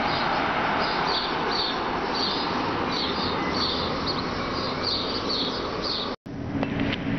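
Freight train of loaded hopper wagons rolling past at close range: a steady rumble of wheels on rails, with a short high squeak repeating two or three times a second. About six seconds in the sound cuts off abruptly and a steady low hum takes over.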